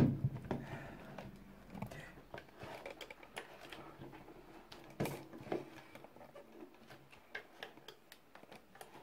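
Scattered light clicks and knocks of a plastic personal blender jar being handled and pressed onto its base, with one louder knock about five seconds in; the blender motor is not running.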